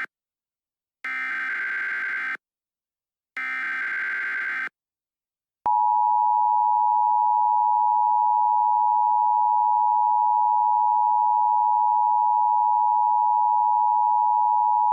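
Emergency Alert System tones: two short bursts of SAME header data tones, each about a second and a half long, then about a second of silence. The steady two-tone EAS attention signal starts about five and a half seconds in and holds.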